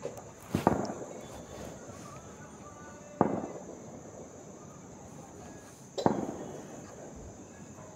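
Three sharp bangs about three seconds apart, each trailing off in an echo over about a second.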